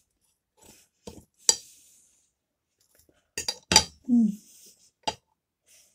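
Metal fork and knife clinking and scraping against a plate while cutting a flaky pastry roll: a few sharp clinks, with a quick cluster about three and a half seconds in. Between them comes a short falling hum from the eater with his mouth full.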